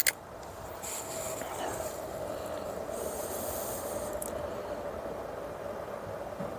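Steady background hiss with a faint hum, and a couple of short clicks at the very start.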